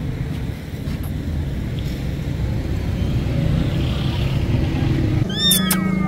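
Street traffic rumble, motorcycles and cars running on the road. Near the end a kitten starts mewing: high mews that rise and fall in pitch.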